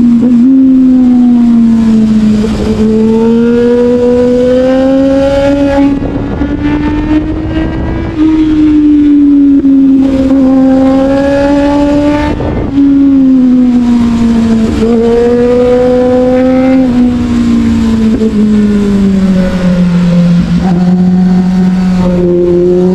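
Motorcycle engine running under way, its pitch rising and falling as the throttle is worked. It eases off about six seconds in and picks up again two seconds later, with wind noise throughout.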